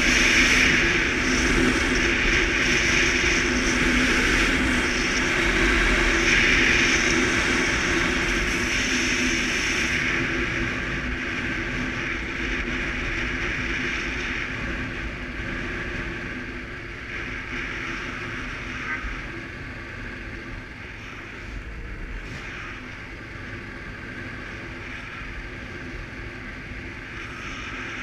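Suzuki KingQuad ATV engine running steadily under way, with wind rushing over the microphone; the sound grows gradually quieter over the second half.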